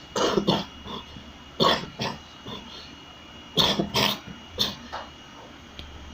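Sneezing in a run of short, sharp bursts that come in three bouts about two seconds apart, the last bout the longest.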